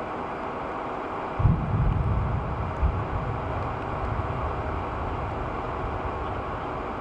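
Steady outdoor wind noise, with a low rumble starting suddenly about a second and a half in and fading over the next few seconds.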